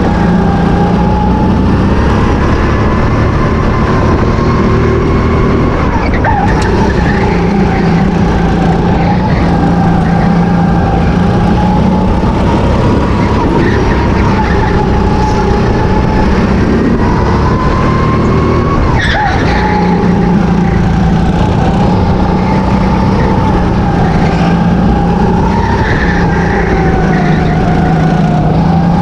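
Go-kart engine heard onboard, running hard. Its pitch climbs slowly along the straights and drops sharply twice, about six seconds in and again near nineteen seconds, as the throttle is lifted for corners.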